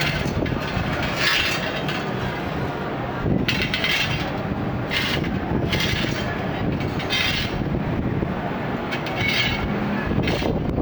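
Steel bars scraping and clanging on pavement in short irregular bursts, some leaving a faint metallic ring, over a steady rumble of street traffic.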